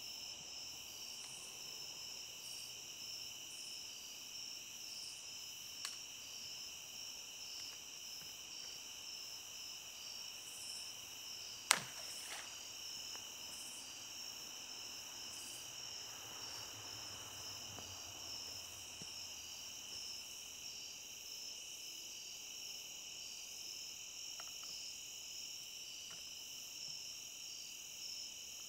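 Steady high chorus of crickets and other night insects, with an evenly repeating pulse running through it. A single sharp click about twelve seconds in is the loudest sound.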